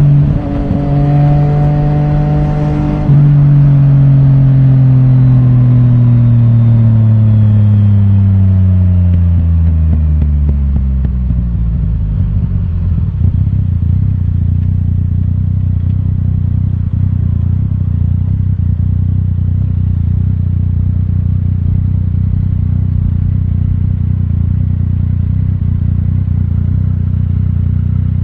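Yamaha Tracer 900 GT's inline three-cylinder engine through an Akrapovic titanium full exhaust with the dB killer removed. It holds steady revs, then falls steadily in pitch for about eight seconds as the bike slows. From about twelve seconds in it settles into a steady, lower idle.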